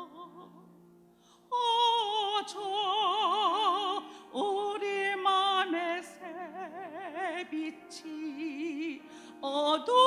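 A woman's solo voice sings a hymn in a trained, operatic style, holding long notes with wide vibrato. A brief pause comes about a second in, then the singing resumes and moves through several sustained notes.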